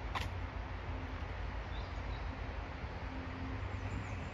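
Steady forest-trail background noise with a low, even rumble, a single sharp click just after the start, and a couple of faint bird chirps about halfway through.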